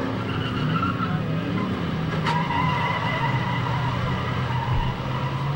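Demolition derby cars' engines revving unevenly, with tires skidding. About two seconds in there is a sharp crack, followed by a high squeal that holds for a couple of seconds.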